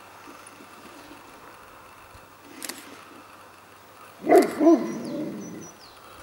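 A dog barks twice in quick succession about four seconds in.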